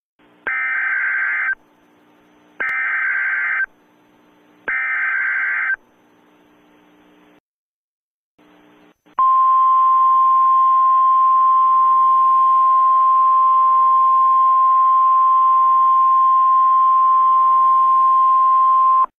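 Emergency Alert System broadcast: three one-second bursts of screechy SAME header data tones about a second apart, then, after a short pause, a single steady attention tone held for about ten seconds, signalling that an alert message follows.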